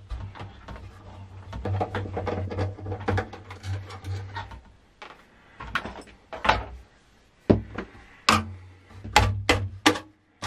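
Hands working a steel I/O shield loose inside a sheet-steel server tower case: scraping and rattling of metal for the first few seconds, then a series of about seven sharp metallic clicks and knocks.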